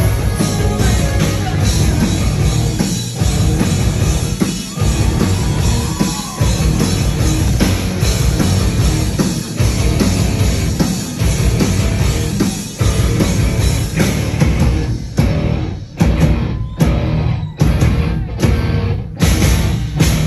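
Live rock band with electric guitars, bass and drums playing loud and dense through a club PA. From about fifteen seconds in, the playing breaks into a string of short, hard-stopped hits with gaps between them, like a song's closing stabs.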